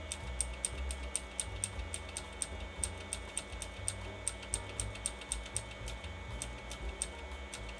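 A computer keyboard key tapped over and over, about four sharp clicks a second, as the BIOS hard-disk type list is paged through, over the low hum of the running computer.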